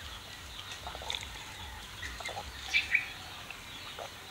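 Birds chirping now and then in short, scattered calls, faint, over a low rumble.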